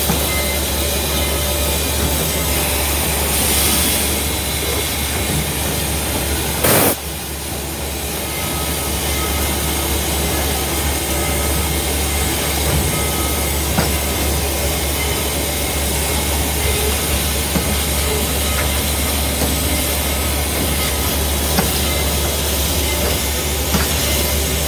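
Steady low rumble and hiss inside the cab of the Southern Railway 4501 steam locomotive, with the fire burning in the firebox. About seven seconds in there is a brief, louder burst of noise lasting about half a second.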